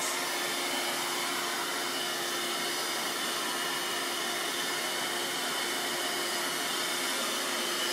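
Dirt Devil vacuum cleaner running steadily: an even rush of air with a constant motor hum.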